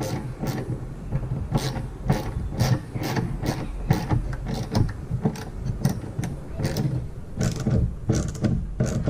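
Sharp metallic clicks, two or three a second, of a small socket ratchet working the nut that holds a wiper arm onto its spindle.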